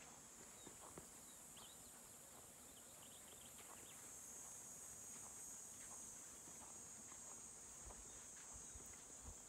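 Faint insect chorus: a steady high-pitched drone that grows slightly louder in the second half, with scattered faint ticks.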